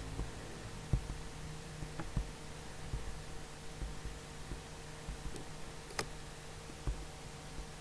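Steady electrical hum with scattered low knocks and soft clicks, the sharpest click about six seconds in.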